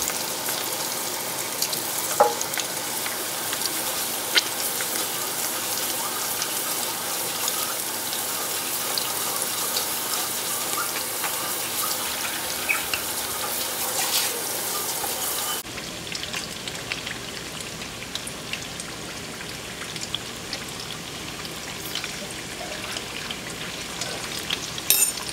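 Rolled chicken flautas frying in a skillet of hot oil: a steady sizzle scattered with small crackles and pops, a little quieter for the last third.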